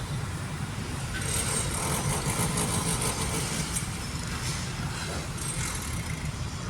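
Steady, grating noise of a power tool working concrete, a concrete saw or drill, over a low engine-like rumble, with a thin high whine coming in about a second in.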